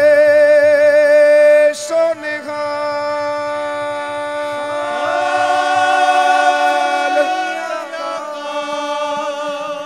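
Male Sikh kirtan singer drawing out long, wavering notes without words over a steady harmonium drone: one long held note, a short break about two seconds in, then a second long note in the middle that fades near the end.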